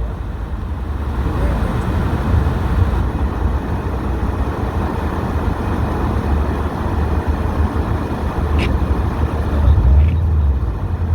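Subaru WRX STI with its turbocharged flat-four, driving along with a steady low engine rumble and road noise. There is one brief click about three-quarters of the way through.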